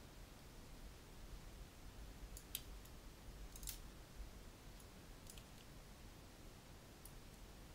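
A handful of faint computer mouse clicks over near-silent room tone, including a quick double click about three and a half seconds in.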